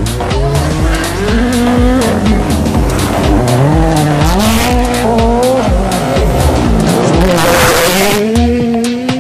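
WRC rally car with a 1.6-litre turbocharged four-cylinder engine driven hard through a bend, its engine pitch rising and falling as it shifts. About seven seconds in there is a loud rush of gravel and dust as it passes close by.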